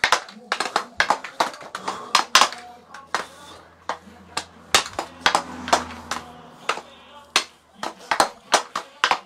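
Hockey stick blade working a puck in a quick figure-eight on a plastic stickhandling board: a rapid, irregular run of sharp clacks, several a second, as the blade strikes and drags the puck across the board.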